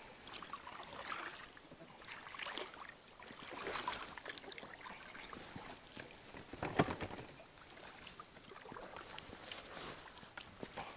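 Kayak paddle strokes in calm water, an irregular series of dips and splashes with water dripping from the blade. One stroke, about two-thirds of the way through, is louder than the rest.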